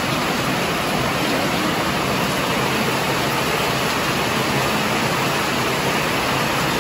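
Steady rushing noise, even throughout, with no distinct events.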